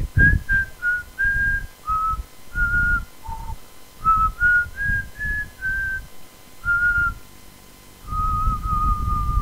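A person whistling a slow melody, one held note after another, each note with a low puff of breath noise under it. The tune dips to its lowest note about three seconds in and ends on a longer held note.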